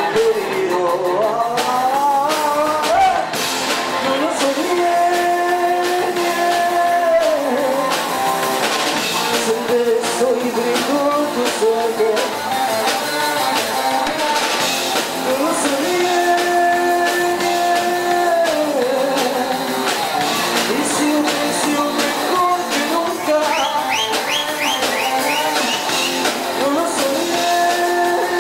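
Rock-style music with singing over guitar; the melody moves in phrases of long held notes that recur about every eleven seconds.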